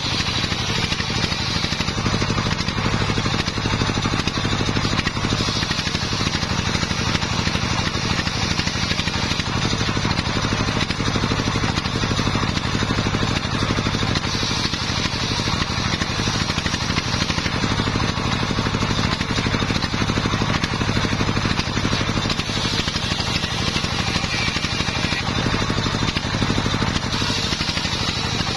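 Engine-driven homemade circular saw bench running steadily while its large blade rips waru (sea hibiscus) wood into boards, engine running under the hiss of the blade in the wood.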